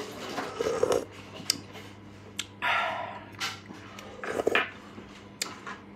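Someone eating soup with a metal spoon: sharp clicks of the spoon against the bowl, with a slurp a little under three seconds in and softer mouth and chewing sounds.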